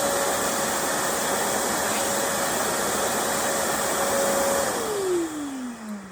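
Electric blower motor, of the vacuum or air-blower kind, running with a steady whine over a loud rush of air. It is switched off about four and a half seconds in and winds down in a falling whine.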